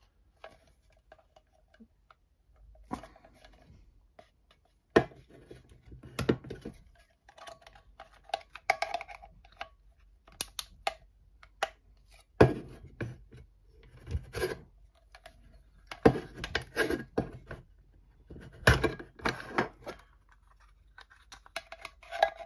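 Culinare MagiCan can opener worked against the rim of an empty steel bean tin, giving irregular metallic clicks and clunks as its cutter bites into the metal to punch a row of small cuts. Some of the knocks ring briefly in the hollow can.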